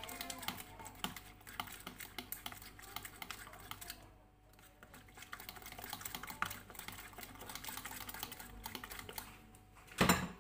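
A fork beating a batter of eggs, cheese and grated pumpkin in an orange plastic bowl: quick, rapid clicking of the fork against the bowl. There is a short pause about four seconds in and a single louder knock near the end.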